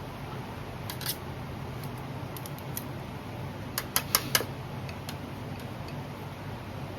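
Light metallic clicks and ticks from thin steel piston oil-ring parts being handled and fitted onto a piston by hand. There are a few faint ticks about a second in and a quick run of four sharper clicks about four seconds in, over a steady low hum.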